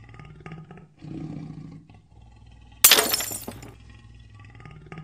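Lion growling and roaring, with a sudden glass-shattering crash about three seconds in.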